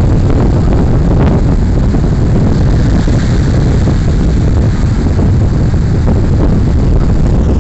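Strong wind buffeting the microphone: a loud, steady, rumbling roar, with surf washing on the beach underneath.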